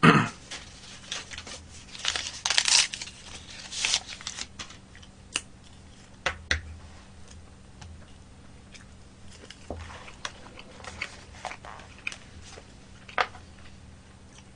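Eating and handling noises: crinkling and rustling about two to four seconds in, then scattered sharp clicks of chopsticks against a black plastic takeout tray, with quiet chewing.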